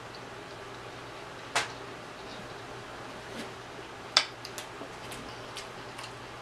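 Close-up eating sounds of someone eating rotisserie chicken with her fingers: a few sharp, wet mouth and lip clicks, the louder two about one and a half and four seconds in, over a faint steady hum.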